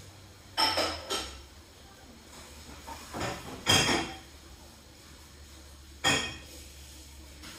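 Five sharp clinks and knocks of hard objects striking each other, coming in pairs about half a second apart, each with a brief ringing tail.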